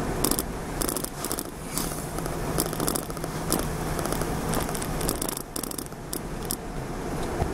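Car road noise heard from inside the cabin while driving: a steady rumble of engine and tyres, with frequent short rattles and clicks at irregular intervals.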